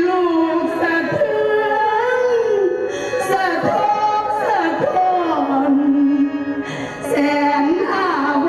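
A singer performing a slow sung lament with long held, wavering notes and sliding pitches over instrumental accompaniment.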